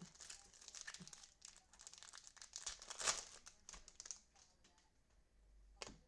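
A foil trading-card pack wrapper crinkling and tearing as a pack of 2020 Mosaic football cards is opened by hand. The crackling is heaviest about three seconds in, dies down, and there is one sharp click near the end.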